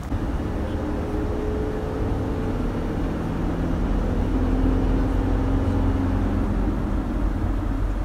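Engine and road noise heard inside the cabin of a moving van: a steady low rumble with a faint engine hum, growing slightly louder over the first few seconds.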